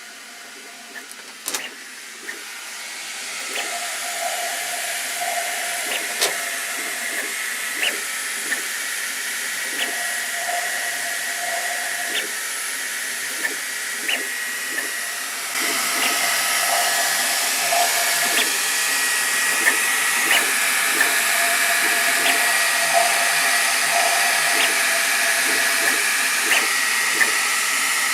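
Sovol SV08 3D printer running, making its odd sounds: a steady rushing, blowing noise that gets louder about three seconds in and again about halfway through. Whining tones come and go over it, along with scattered sharp clicks.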